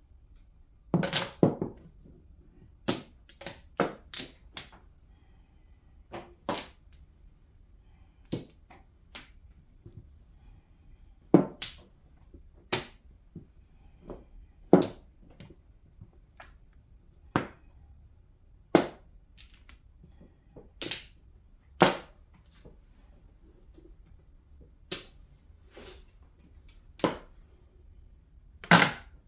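Mahjong tiles clacking sharply as players draw them and discard them onto the table, in single and doubled clicks about a second or so apart at an uneven pace.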